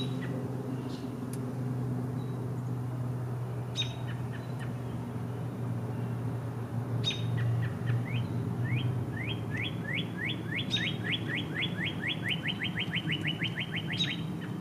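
Songbirds calling: sharp high chips every few seconds, and from about halfway in a long series of short rising whistles that speeds up into a rapid trill. A steady low hum runs underneath.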